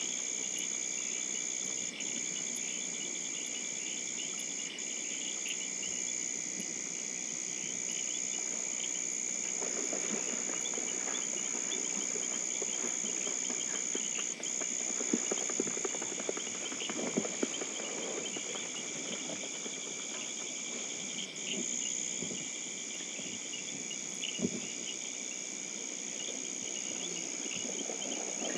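Insects calling in a dense, steady high-pitched chorus, with a few soft clicks about halfway through.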